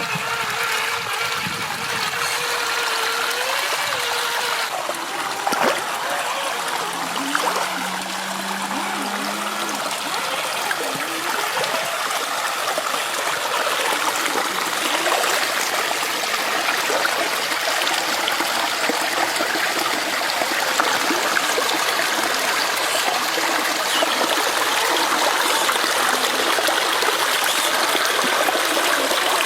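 Shallow river water flowing and trickling steadily, with a faint wavering whine in the first few seconds.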